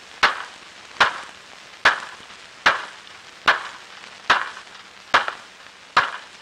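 Hammer blows on a wooden fence rail: eight even strikes, a little under a second apart.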